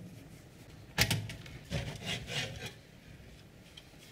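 Handling noises from taking apart a computer power supply's metal case: a sharp knock about a second in, then scraping and rubbing as the parts are moved.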